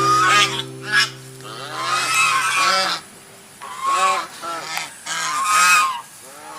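Large waterfowl honking: repeated short calls that rise and fall in pitch, coming in several bouts.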